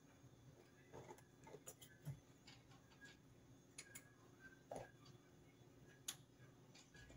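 Near silence with a few faint, scattered clicks and taps from handling a plastic glue bottle and pressing a small putty piece onto a cardboard model.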